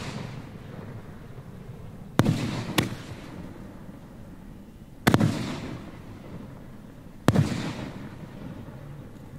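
Fireworks shells bursting: four sharp bangs a few seconds apart, the first two about half a second apart, each trailing off in a rumbling echo.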